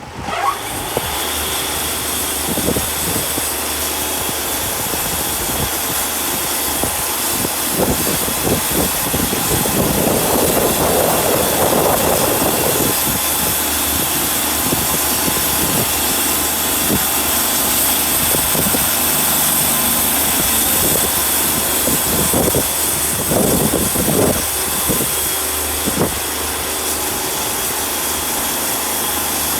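Wood-Mizer band sawmill running, its engine under load as the band blade cuts through a log. The sound comes up sharply at the start, then holds steady, with a few irregular rougher stretches.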